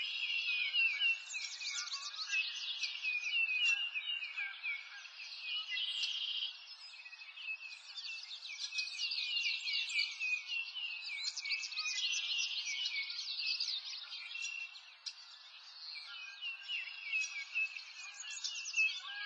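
Dense chorus of many overlapping high-pitched chirping calls, each a short falling chirp, running on without a break and dropping in level for a while around seven seconds and again around fifteen seconds in.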